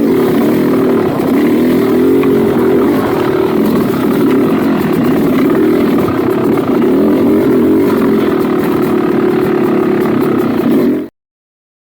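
Dirt bike engine running while riding, its pitch rising and falling with the throttle; it cuts off suddenly near the end.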